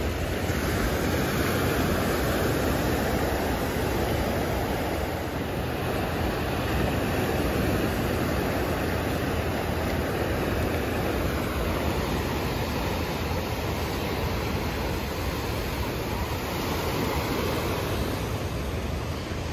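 Ocean surf washing up the beach and around the ankles in shallow water, a steady rushing noise with a low rumble underneath.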